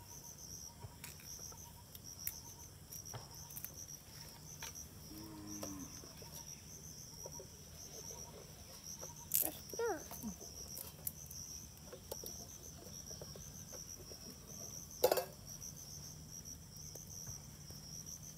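Steady, high-pitched chorus of chirping insects. A few soft clicks, a short voice-like sound about halfway through and a sharp click a few seconds later sit on top of it.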